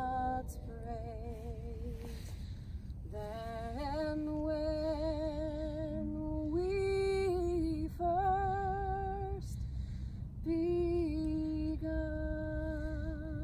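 A woman singing alone without accompaniment, in several slow phrases of long held notes with vibrato and short pauses between them.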